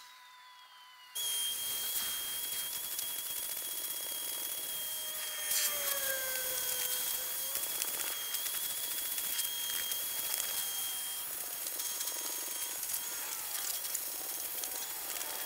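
Vacuum cleaner running with a steady high whine as its hose nozzle is drawn over the carpet treads of a folding plastic pet stair. It starts abruptly about a second in.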